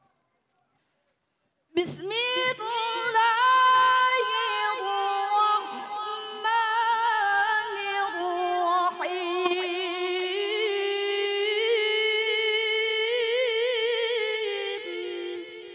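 A woman reciting the Qur'an in the melodic tilawah style into a microphone: a single high voice, unaccompanied, holding long ornamented notes with quavering turns. It starts about two seconds in and fades near the end.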